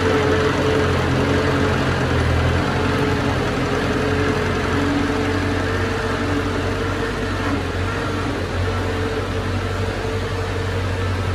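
Heavy earthmoving machine's diesel engine running steadily, a constant drone with a held hum, gradually a little quieter toward the end.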